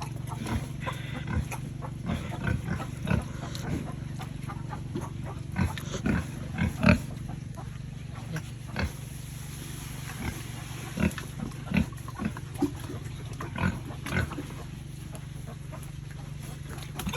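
Pigs grunting as they feed: many short, irregular grunts, a few louder ones about six to seven seconds in, over a steady low hum.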